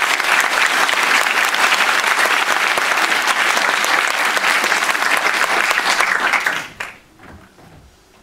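Audience applauding, a dense clatter of many hands clapping that dies away about seven seconds in.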